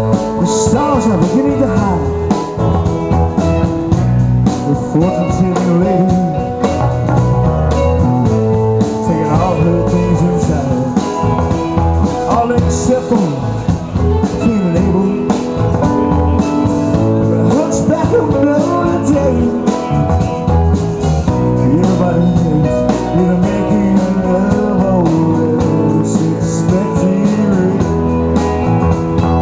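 Live rock band playing an instrumental passage: electric guitars, bass guitar and drums, with a lead guitar line of bending notes over a steady bass.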